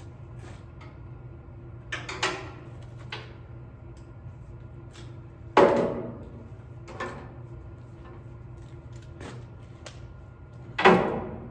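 Intermittent clanks and knocks of parts and tools being handled while brackets are taken off a forklift, each with a short ring, the two loudest about halfway through and near the end, over a steady low hum.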